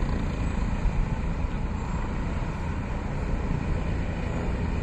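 Helicopter's rotor and turbine engines running, a steady, noisy low rumble with the rotors turning.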